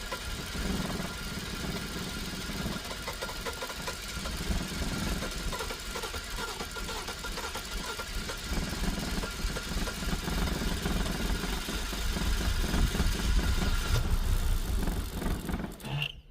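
Starter motor cranking a BMW N52 straight-six in a long, steady churn without the engine catching, growing a little louder toward the end before the cranking stops. This is a crank-no-start, which the owner puts down to a faulty crankshaft position sensor.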